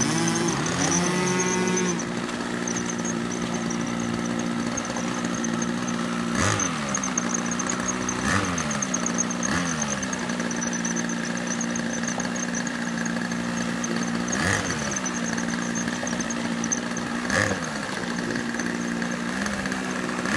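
Model airplane engines running at high power in steady flight, their pitch dropping sharply six times as the planes make close, fast passes.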